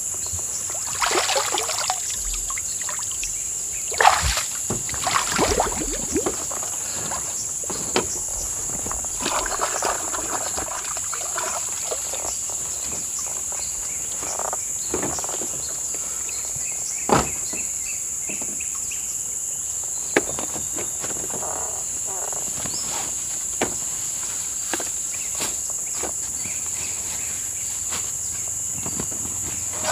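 A steady high-pitched drone of forest insects, with water sloshing and splashing now and then and a few sharp knocks, the loudest about four and seventeen seconds in.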